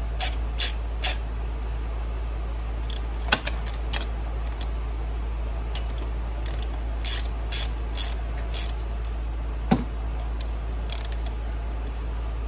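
Hand ratchet clicking in short strokes on the bolt of a cam bearing install tool in a Harley-Davidson Shovelhead crankcase, with a couple of sharper metal knocks, over a steady low hum.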